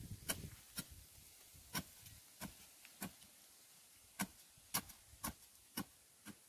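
About ten short, sharp clicks spaced unevenly half a second to a second apart: a long-handled digging bar stabbing down into hard, dry earth while a hole is dug by hand.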